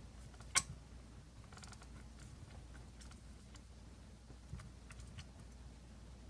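Quiet handling of small silicone-insulated wires being stripped for soldering: one sharp click about half a second in, then a few faint scattered ticks.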